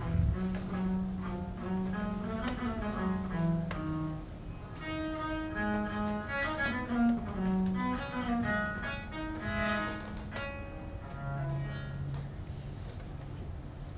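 A solo bowed string instrument, held upright between the knees, plays a slow melody in its low and middle range, closing on a held low note near the end.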